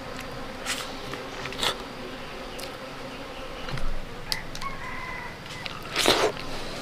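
A rooster crows faintly a little past the middle, over a steady buzz of bees around the honeycomb. Scattered sharp clicks and a short rustle near the end come from the sticky honeycomb being handled.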